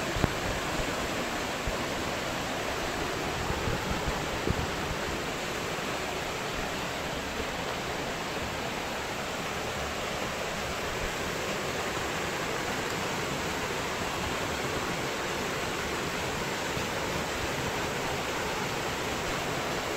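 Water pouring over a small stone weir on a brook, a steady rushing. A couple of short knocks sound in the first five seconds.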